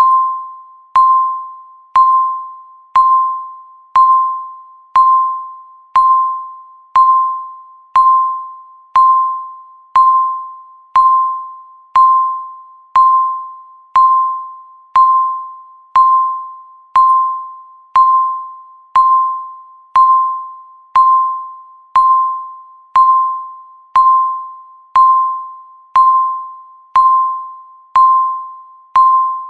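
Countdown timer beeping once a second: a single electronic beep near 1 kHz on each second, each one struck sharply and fading away before the next.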